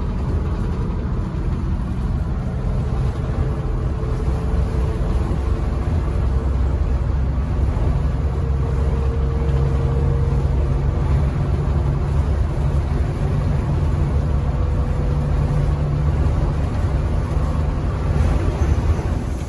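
1980 MCI MC9 coach driving at highway speed, heard from inside the cab: a steady diesel engine drone mixed with road and wind noise.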